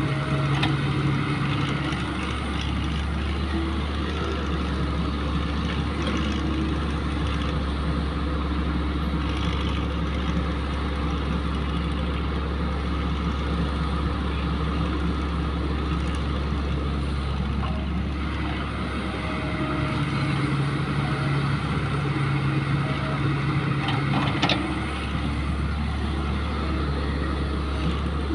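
Caterpillar tracked excavator working, its diesel engine running steadily and pulling harder for stretches as the boom swings and the bucket digs. One sharp clank near the end.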